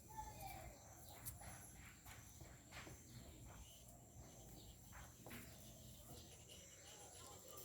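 Faint, sporadic knocks and clicks, with a short faint call near the start, from a male jabuti tortoise pursuing a female to mate.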